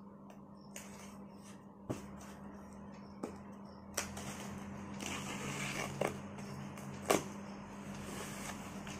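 Hands opening a cardboard parcel: packing tape peeled off the box with a rasping tear from about four to seven seconds in, and sharp clicks and knocks of the cardboard being handled and its flaps pulled open, the loudest about seven seconds in. A steady low hum lies underneath.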